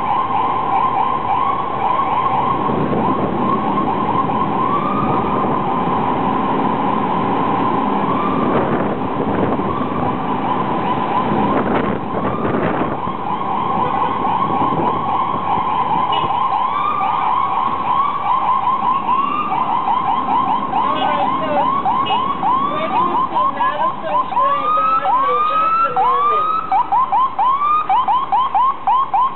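Ambulance siren sounding without a break in fast, repeating rising sweeps, which grow wider and more distinct from about halfway through.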